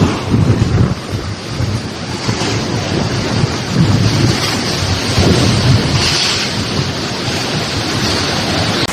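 Severe storm: a dense, steady rush of heavy rain and hail, with low gusts of wind buffeting the microphone.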